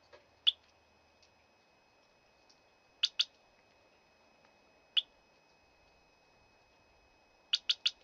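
Short high-pitched electronic beeps from a bicycle anti-theft alarm unit: one beep, then two in quick succession, another single beep, and three quick beeps near the end.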